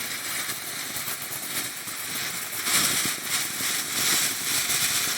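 Novelty clown fountain firework burning, with a steady hiss of spraying sparks and dense crackling.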